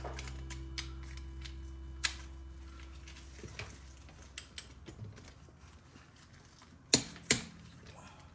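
Metal clicks and clinks of lug nuts and wheel hardware being handled during a tyre change, with two sharp metallic knocks close together near the end. A low steady hum fades away by about halfway.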